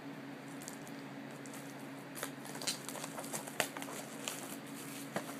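Plastic wrapping being peeled off a DVD box set: scattered crinkles and small clicks beginning about two seconds in, over a steady low hum.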